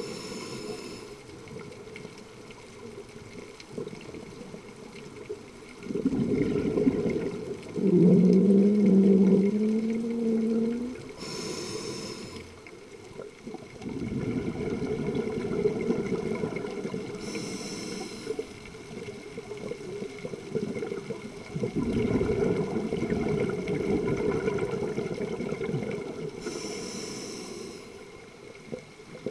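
A scuba diver breathing through a regulator underwater: four short hissing inhales, each followed by a long bubbling exhale. One exhale, about eight seconds in, carries a low hum that rises slightly in pitch.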